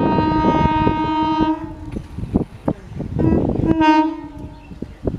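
EMU local train sounding its horn twice as it approaches: a long blast of nearly two seconds, then a shorter one about three seconds in. Its wheels clatter over the rail joints throughout.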